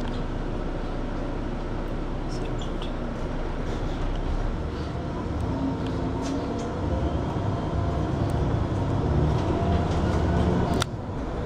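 City bus engine and road noise as heard from on board while the bus drives. The rumble gets louder from about seven seconds in, then drops away suddenly after a click near the end.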